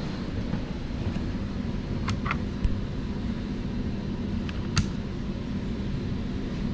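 Steady hum of a residential air handler's newly replaced X13 blower motor running, with a few light clicks and a sharper click about two-thirds of the way through.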